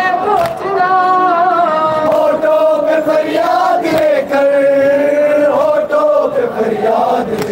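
Male mourners chanting an Urdu Muharram noha (lament) in long, drawn-out sung notes. The chant is punctuated by sharp chest-beating slaps (matam) about every two seconds.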